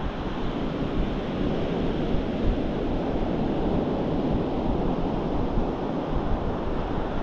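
Steady wind rumbling on the microphone over the wash of surf breaking on the shore.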